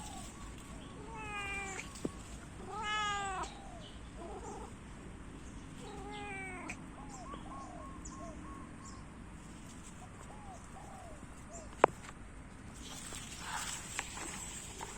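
A domestic cat meowing repeatedly: a meow about a second in, a louder drawn-out one around three seconds, another around six seconds, then a run of short, softer mews. A single sharp click near the end.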